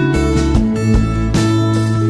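Background music led by a strummed guitar, chords struck about twice a second over steady low notes.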